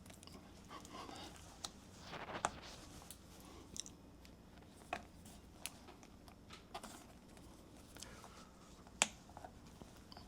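Faint, irregular clicks and light taps of hand tools being worked at a punctured tire, spaced a second or so apart, with soft handling noise between.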